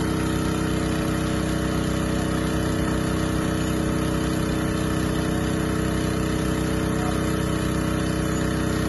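An engine running steadily at a constant speed, with no change in pitch or loudness, typical of the motor driving borehole drilling equipment.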